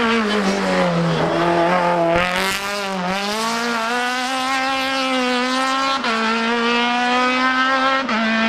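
Hill-climb racing car's engine dropping in pitch as it brakes and slows for a hairpin, then accelerating away hard, climbing in pitch through the gears with quick upshifts about three, six and eight seconds in.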